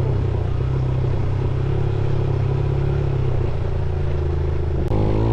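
Motorcycle engine running at a fairly steady pace. About five seconds in there is a sudden click and the sound changes abruptly, like a cut to another shot.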